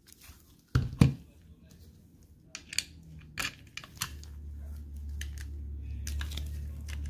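Sharp metallic clicks and knocks of a Luger P08 pistol being handled with its side plate off, the loudest pair about a second in. A low steady hum comes in about halfway.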